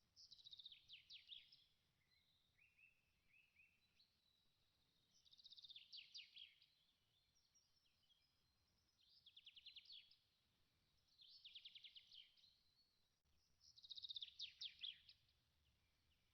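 Faint songbird singing: five short phrases, each a quick run of rapid notes dropping in pitch, a few seconds apart, with softer chirps between the first two.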